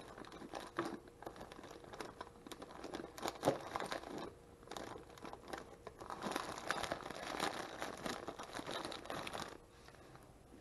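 Clear plastic slider-zipper freezer bag crinkling and rustling as it is handled and sealed, with one sharper crack a few seconds in. The crinkling dies down near the end.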